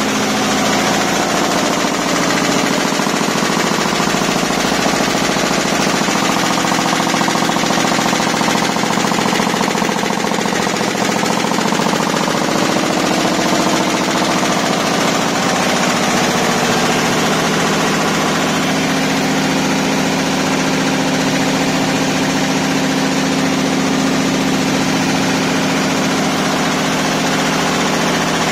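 A multi-needle quilting embroidery machine running at high speed, its needles stitching in a rapid, even rhythm over a steady hum.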